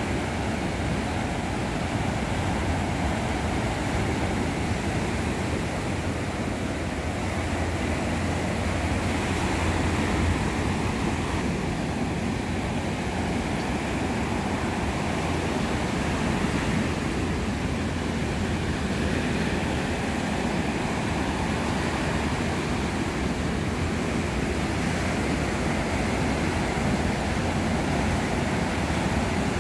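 Ocean surf breaking and washing up the beach: a steady rushing of waves, with some wind on the microphone.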